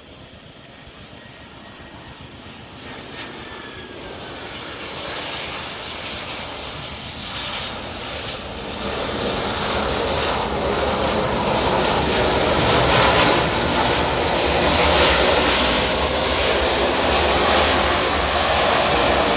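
Airliner engines growing steadily louder for about twelve seconds as the aircraft comes close, then staying loud.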